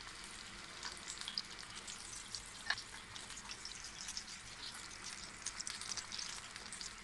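Boondi-coated paneer pakoras deep-frying in hot oil in a pan: a faint, steady sizzle full of fine crackles. One brief sharper click comes a little under three seconds in.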